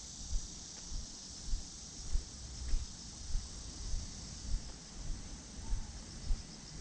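Footsteps thudding at a steady walking pace, a little under two a second, over a steady high chirring of insects.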